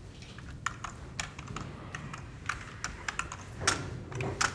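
Computer keyboard being typed on: irregular key clicks at a few a second. A louder sound comes about three and a half seconds in.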